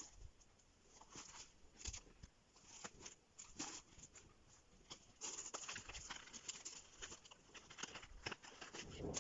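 Quiet handling of packaging during an unboxing: scattered rustles, clicks and light taps of paper and a box being handled, busier in the second half.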